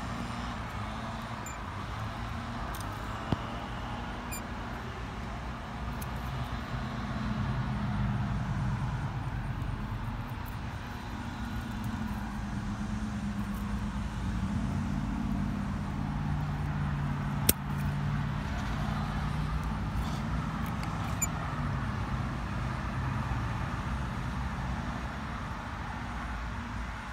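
A steady low engine hum, like a motor vehicle running, its pitch shifting a little now and then. Two sharp clicks stand out, one a few seconds in and one past the middle.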